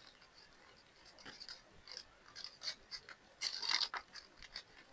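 Plastic full cover nail tips being handled: light clicks and rustling, with a louder cluster of clicks about three and a half seconds in.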